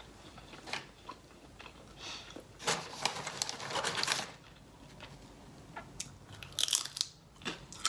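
A person eating close to the microphone from a Chipotle burrito bowl: chewing and biting, with scattered clicks and rustling from the bowl and utensil and two louder stretches of crunching and crinkling in the middle and near the end.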